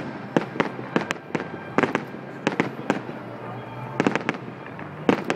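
Aerial fireworks bursting: sharp bangs and cracks at irregular intervals, several in quick clusters.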